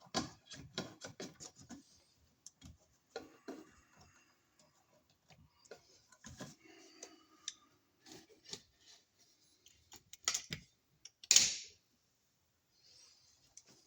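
Irregular small clicks, taps and short scrapes of hand work, with a quick run of clicks at the start and two louder scrapes near the end.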